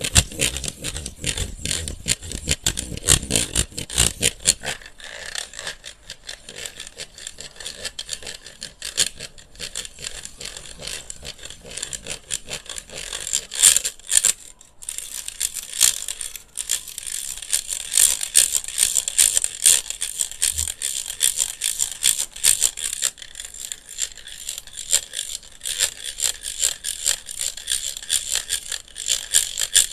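Close-up ASMR tapping, scratching and rattling on a handheld electric fan, a fast, dense run of small clicks and scrapes. Some duller knocks sound in the first few seconds, then the sound turns lighter and crisper, with a brief pause about halfway.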